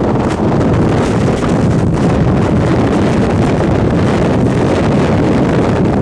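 Strong wind rushing over the microphone, a loud, steady noise with no breaks.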